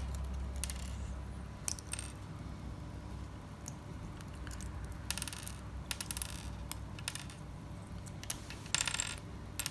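Plastic Strandbeest kit parts being twisted off their sprue: scattered small clicks and snaps, with quick clusters of clicks about five seconds in, again around six to seven seconds, and near the end.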